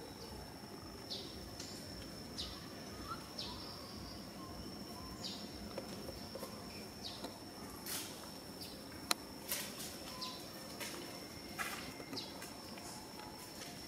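Outdoor ambience of a steady high-pitched insect drone with short falling chirps about once a second. A few sharp clicks and rustles come through, the loudest about nine seconds in.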